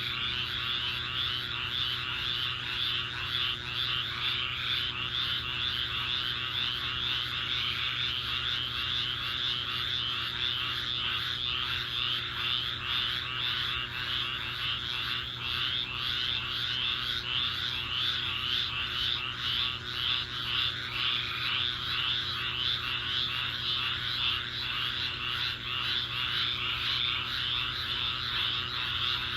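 Chorus of thousands of frogs calling after a rainstorm: a steady, dense cacophony of rapid overlapping calls.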